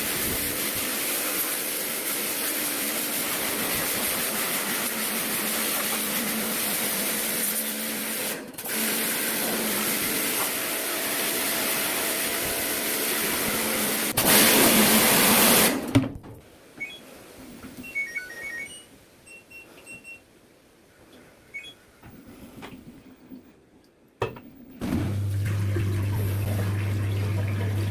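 Water spraying hard for about fourteen seconds, louder for a couple of seconds, then cut off suddenly, as washing machine parts are hosed clean. A few faint short beeps follow in the quiet, and near the end a steady low hum starts.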